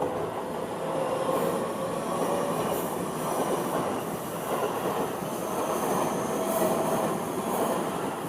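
Seibu Ikebukuro Line train passing over a level crossing: steady running noise of wheels on rail, with a thin high whine over it.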